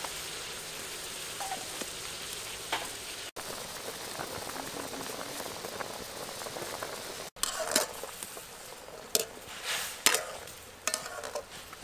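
Water with chicken feet in it boiling hard in an aluminium wok: a steady bubbling hiss. Several sharp knocks and scrapes break in over the second half.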